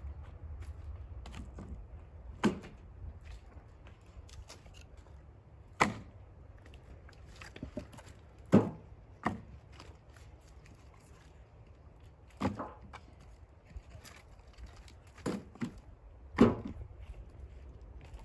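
Firewood logs being tossed down one at a time, each landing with a hard wooden knock, the knocks coming irregularly every few seconds.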